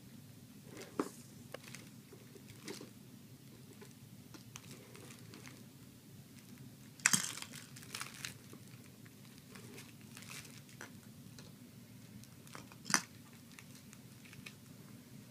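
Handling noises from a child playing with a toy ball: scattered soft crinkling and clicking, with two sharper knocks about seven seconds in and near the end.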